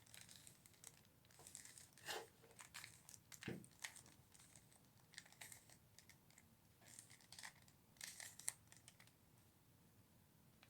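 Plastic 3x3x3 Rubik's Cube being turned by hand: faint clicks and scraping rattles from the layers twisting, in quick bunches of moves, dying away near the end.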